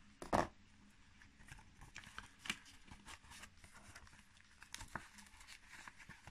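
Old book's paper pages rustling and crackling as hands pull a sewn signature apart at its centre fold, with one sharper crackle about half a second in and small rustles and clicks after it.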